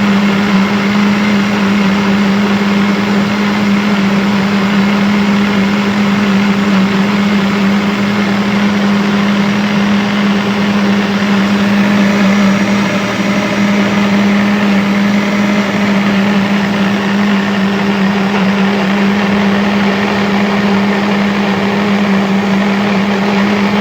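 Electric blender motor running at one steady speed: a constant low hum with an even whirring hiss above it.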